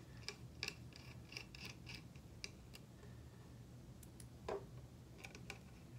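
Faint scattered clicks and light scrapes of small PoE HAT screws and a small screwdriver being handled and driven into the spacers of a Raspberry Pi 4, with one brief louder sound about four and a half seconds in.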